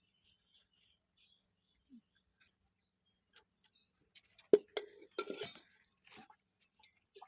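Small hard objects being handled on a work surface: one sharp click about four and a half seconds in, then a brief clinking rattle and a few light clicks.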